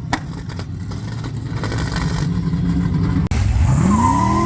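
Quad-turbocharged VL Holden Commodore engine running with a steady low rumble. About three seconds in it is revved, and its pitch climbs steadily to the end.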